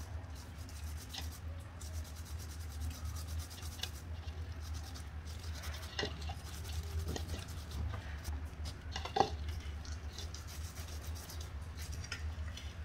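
Half a lemon dipped in chilli-powder-and-salt paste being rubbed over the kernels of a charred roasted corn cob: soft rubbing and scraping, with a few light clicks, the sharpest about nine seconds in. A steady low hum runs underneath.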